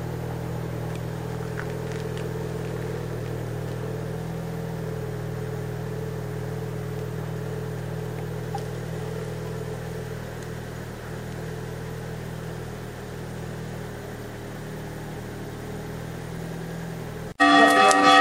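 A motor vehicle engine running at a steady hum. Near the end it cuts off abruptly and loud church bells start ringing.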